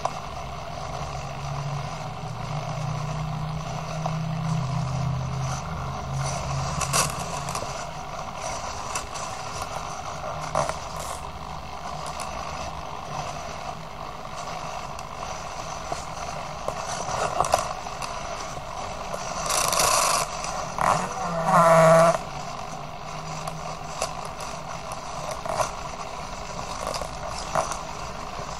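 Small hobby servos of a walking hexapod robot whirring and ticking with each leg movement, their worn-out plastic gears crunching and grinding under load. A brief louder screech about twenty seconds in.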